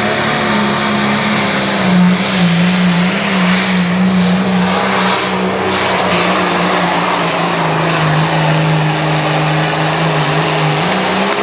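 Limited Pro Stock pulling tractor's 640-cubic-inch diesel engine running flat out under load as it drags the weight-transfer sled down the track. The engine note sags lower about two-thirds of the way in as the sled's load builds, and drops off near the end as the throttle comes off.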